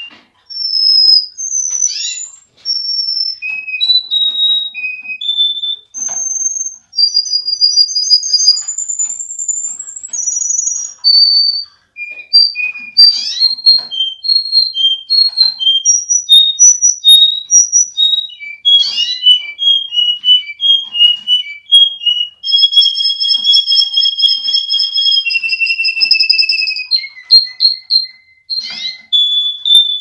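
Domestic canary singing a long, varied song of clear high whistled notes, repeated note series and fast trills. Near the end it holds a long rapid trill on two pitches at once for several seconds.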